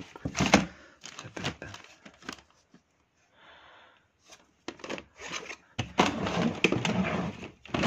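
Plastic CD jewel cases clicking and clacking against each other as they are flipped through and handled, with rustling. There is a brief lull about three seconds in, then denser handling noise near the end.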